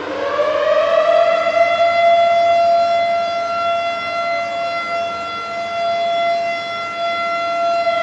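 Air raid siren wailing: its pitch climbs during the first second, then holds one steady, loud tone with a strong stack of overtones.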